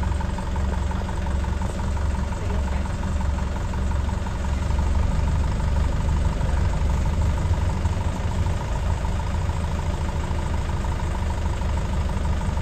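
Safari vehicle's engine running steadily: a continuous low rumble with a faint steady hum above it.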